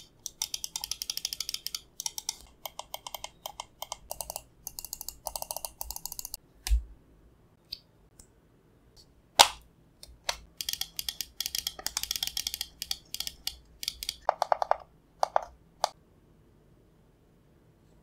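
Razer DeathAdder V3 Pro gaming mouse clicking in rapid runs of sharp clicks as its buttons and scroll wheel are worked by hand. A dull knock comes about seven seconds in and one loud single click about halfway through.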